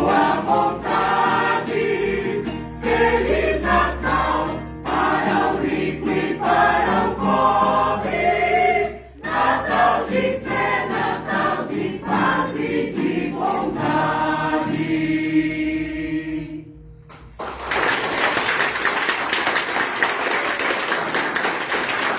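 Mixed-voice amateur choir of sopranos, altos and basses singing a Christmas song and ending on a held chord. After a brief pause the audience applauds.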